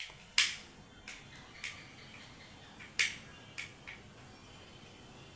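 Small screwdriver turning screws out of a home-made PVC airsoft sear box: a handful of sharp, irregular clicks and ticks of metal on screw and plastic, the loudest about half a second and three seconds in.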